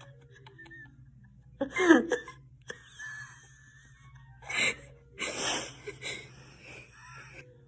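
Two people laughing in a few short, breathy bursts, one with a voiced squeal about two seconds in.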